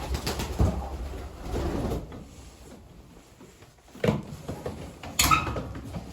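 Handling noises inside a pigeon loft: rustling and clatter for the first two seconds, then two sharp knocks, like a door or box being knocked, about four and five seconds in.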